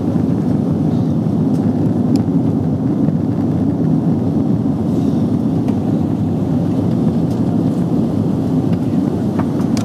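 Steady low rumble of a jet airliner heard from inside the passenger cabin during the landing: engine and airflow noise.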